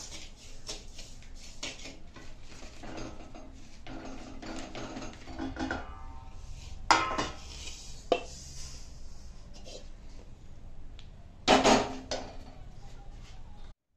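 Metal spatula scraping and stirring roasted semolina in a hammered aluminium kadai, then the pan clanking as the semolina is tipped and scraped out into a steel plate, with a few loud knocks of metal on metal about seven, eight and eleven and a half seconds in.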